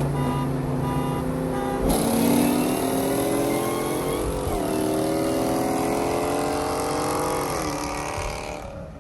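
Ford SVT Cobra's supercharged 4.6-litre V8 idling, then revved up about two seconds in. It is held at raised revs with the pitch slowly climbing, then drops back near the end. The engine has thrown lean codes and started to misfire.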